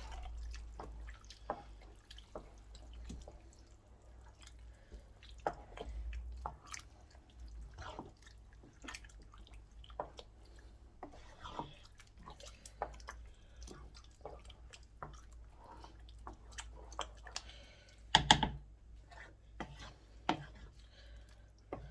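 Pot of jollof rice bubbling on a lowered flame, with scattered, irregular small pops and clicks. A louder clatter comes about 18 seconds in.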